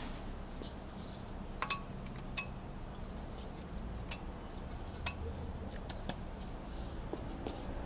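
Sharp metallic clinks, about five spread unevenly over several seconds, as metal parts of an on-car brake disc lathe are handled at the brake disc, over a steady low hum and a thin high steady whine.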